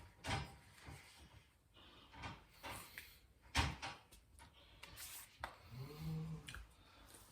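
Several scattered knocks and thumps, the loudest about three and a half seconds in.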